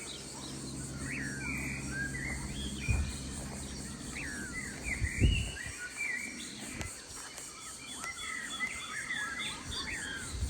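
Several wild songbirds chirping and calling over one another in short, sliding notes, with a faint insect drone underneath. A low steady hum runs through the first half, and there are a couple of soft thumps.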